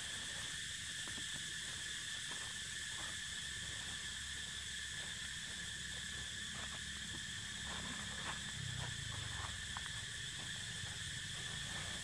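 Steady, high-pitched drone of an insect chorus, with a low rumble underneath and a few faint short ticks and rustles.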